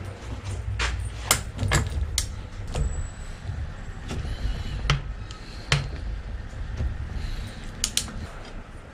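Irregular metallic clicks and clinks of a socket wrench being fitted and turned on a bicycle crank's bottom-bracket axle nut, over a low rumble.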